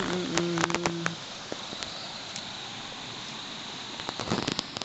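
Insects chirring steadily with a thin, high, unbroken tone over a background hiss. Light clicks and rustles come from a fishing net being handled, clustered near the start and near the end. A short low hum sounds in the first second.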